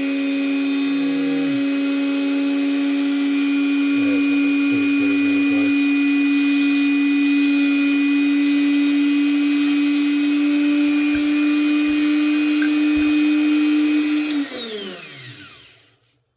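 Dremel rotary tool running steadily on its slowest speed setting while engraving a light identifying mark into a piston. Near the end it is switched off and winds down, its pitch falling away.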